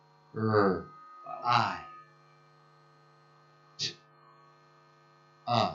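Steady electrical mains hum through the hall's sound system, broken by a few short bursts of a voice: two in the first two seconds and one near the end, with a brief sharp hiss-like sound in between.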